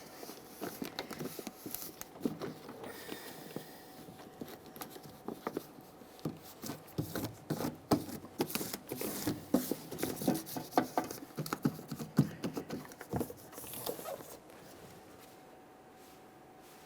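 Plastic door vapor barrier being handled and pressed onto the inner door panel, crinkling and rustling with irregular small crackles and taps, which stop about fourteen seconds in.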